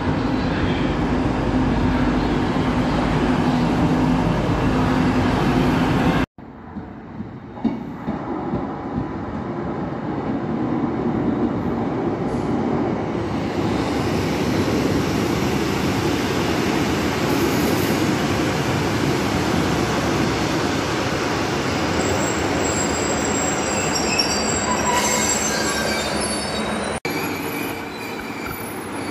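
Diesel multiple units on station track: for about six seconds a TransPennine Express Class 185 runs with a steady engine hum, then after a sudden break an East Midlands Railway Regional diesel unit rolls past, its rumble building and its wheels squealing on the rails near the end.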